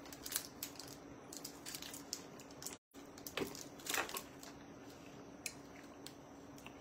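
Faint crinkling and small clicks of a plastic candy wrapper being twisted open by hand, scattered irregularly, over a faint steady hum.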